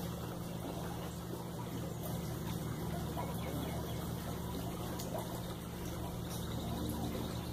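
Steady low hum with water trickling, typical of a swimming pool's pump and filter running.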